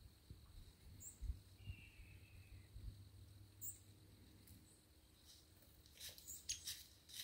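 Near silence in the woods, with a few faint high chirps and a cluster of faint crackles of dry leaves being stirred in the last two seconds.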